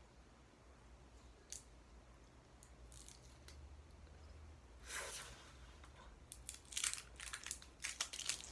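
Small plastic clicks and scrapes as a plastic seal is picked and pulled off a retractable mechanical eye pencil: a few scattered clicks, a longer scrape about five seconds in, then a quick run of sharp clicks near the end.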